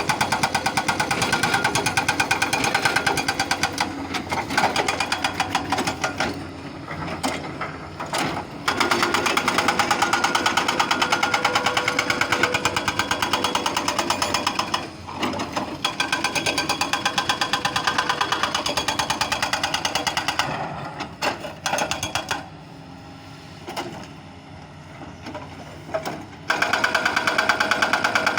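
Doosan excavator's diesel engine working with a fast, even clatter. It drops quieter for brief spells a few times and for several seconds near the end before picking up again.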